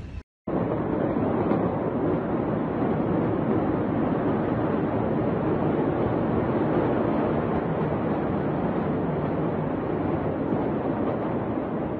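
Loud, steady commotion of a crowd packed into a hospital corridor, many voices at once blurred into one roar, heard through a phone's microphone. It starts after a short dropout near the start.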